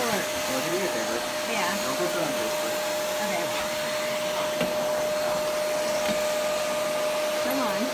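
Vacuum cleaner running steadily: an even rushing noise with one steady whining tone through it.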